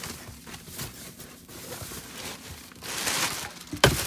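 Rustling and shuffling noise, louder about three seconds in, with one sharp knock just before the end.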